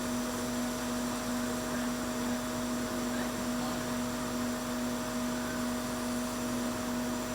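Steady electric blower running: an even hiss with a constant low hum.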